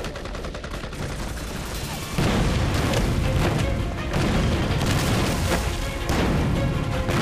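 Dramatized battle sound effects over a music score: rapid gunfire, then about two seconds in a loud explosion boom with a rumble, and more blasts and shots after it.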